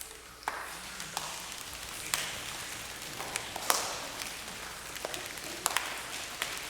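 A congregation imitating the crackle of fire: scattered finger snaps and claps over a steady hiss from many people at once.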